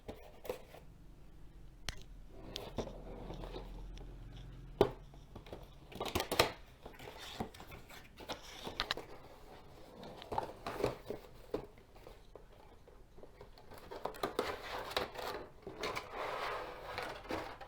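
Sealed cardboard headphone box being broken open and unpacked by hand: irregular tearing, scraping and crinkling of the packaging, with scattered clicks and two sharp snaps about five and six and a half seconds in.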